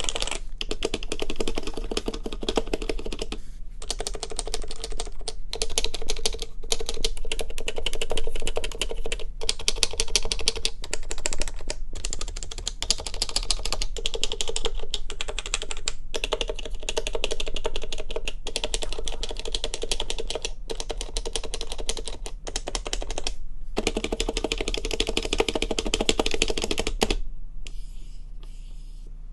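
Fast typing on an HHKB Professional Classic keyboard with Topre switches, mounted in a heavy metal case: rapid runs of keystrokes broken by short pauses. The typing stops about two seconds before the end, leaving a faint low steady hum.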